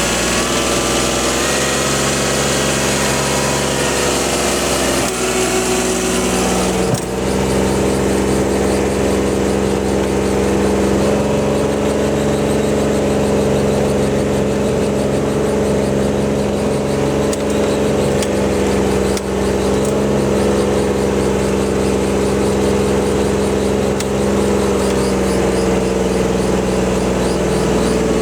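RTV utility vehicle's engine running steadily as it drives, its note shifting about seven seconds in and then holding steady.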